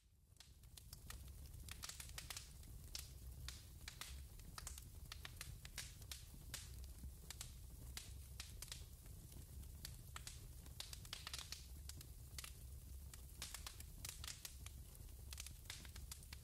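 Fire crackling: sharp pops and snaps scattered irregularly over a low, steady rumble of flames.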